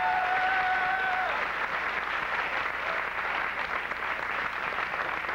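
Audience applauding steadily, with one voice holding a high cheer over the clapping for about the first second and a half.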